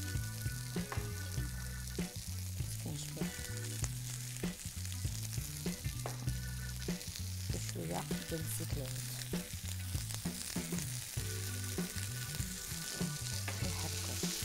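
Diced potatoes and zucchini sizzling in a frying pan. A wooden spoon stirs them now and then, tapping and scraping against the pan. Background music plays underneath.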